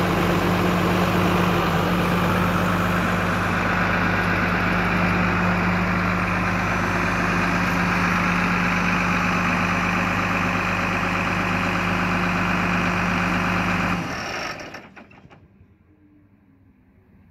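New Holland TV145 tractor's six-cylinder diesel engine idling steadily, then shut off about fourteen seconds in, running down to quiet within about a second.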